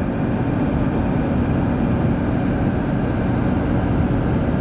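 Old Dodge pickup truck driving along the highway under a heavy load: a steady, even rumble of engine and road noise with no change in speed.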